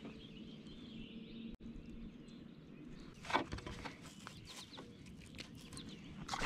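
Faint bird chirps over quiet outdoor ambience, with a brief clatter about three seconds in.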